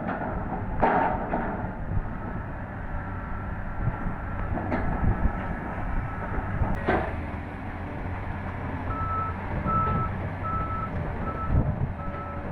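Heavy construction machinery running with a steady low engine rumble and a few sharp metallic knocks; from about nine seconds in, a reversing alarm beeps about twice a second.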